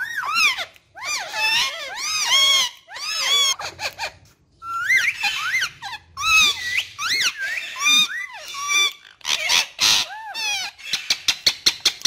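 Indian ringneck parakeets chattering: a busy string of short chirps and whistles that sweep up and down in pitch, broken by brief pauses. Near the end the calls turn into a fast run of short sharp chirps, about five a second.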